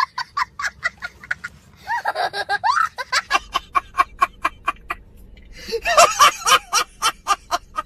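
A small child laughing hard, then, about three seconds in, a man laughing loudly in a fast, high-pitched run of short ha-ha sounds, about four to five a second.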